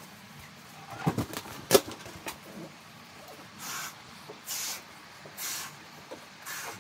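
Rubbery squeaks and a sharp snap from a latex balloon being handled at its neck, then a woman blowing up the balloon by mouth, with a breath of air about once a second.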